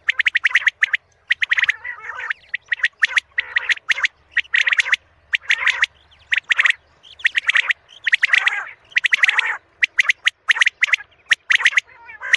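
Quail calling: quick runs of sharp, high-pitched clipped notes, several to a second, broken by a few lower, rougher calls.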